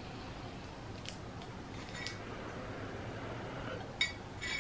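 Glass bong bubbling softly as smoke is drawn through the water. About four seconds in, the glass bowl piece clinks twice with a short ringing as it is pulled from the stem.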